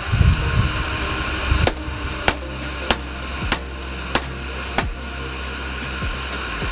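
Hand hammer striking a hot high-carbon steel ball peen hammer head on an anvil, flattening it into an axe blade: about six sharp blows a little over half a second apart, over a steady low hum.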